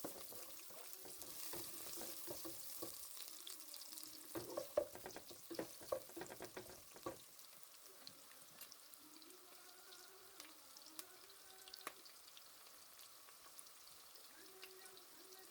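Food sizzling in a frying pan, with a run of utensil knocks and scrapes against the pan about four to seven seconds in.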